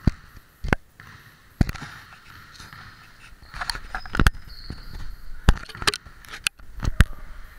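Sharp thumps and knocks at uneven spacing, about one a second, with a brief high squeak around the middle.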